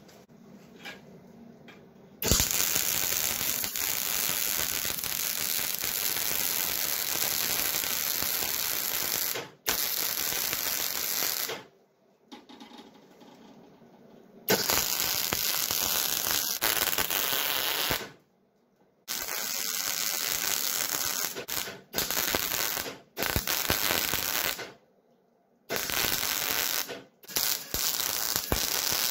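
MIG welder arc crackling while laying weld runs on sheet-steel patch panels of a cab door frame. It comes in about eight runs of one to seven seconds, each starting and stopping abruptly, with short quiet pauses between them.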